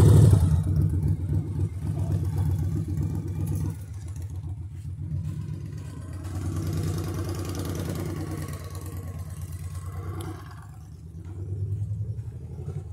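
Cruiser motorcycle engine passing close at its loudest right at the start, then running on as the bike rides away, its sound dropping and swelling again twice.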